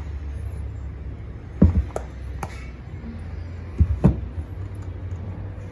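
Tight-fitting lid of a cardboard tablet box being worked off its base by hand, with soft rubbing and a few short knocks and taps as fingers grip and push the box. A steady low hum runs underneath.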